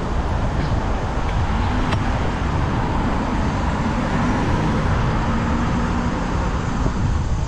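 City road traffic: a steady rumble of passing cars, with a vehicle's engine hum standing out through the middle.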